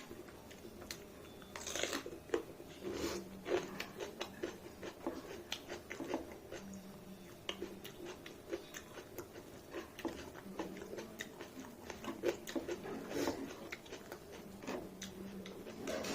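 Close-up chewing and eating sounds: many short, irregular wet mouth clicks and smacks as food is chewed.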